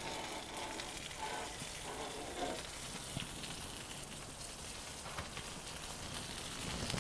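A thick New York strip steak sizzling steadily in a hot Lodge cast iron pan.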